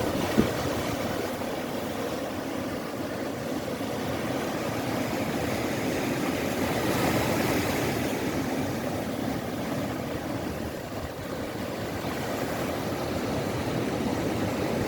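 Sea waves breaking and washing on a beach, a steady surf noise that swells up around the middle, with a short click about half a second in.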